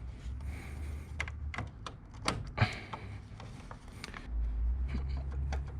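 Scattered sharp clicks and knocks of pliers and plastic as a shifter cable end with a Delrin bushing is pressed onto its ball joint, with the loudest snaps about two and a half seconds in. A low steady hum joins a little after four seconds in.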